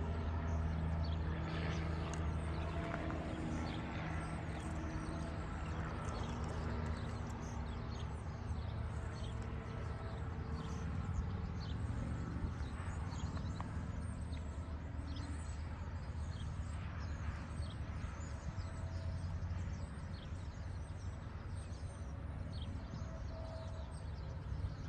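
A steady low mechanical drone, strongest in the first few seconds and then weaker, over open-air ambience with scattered faint high-pitched sounds.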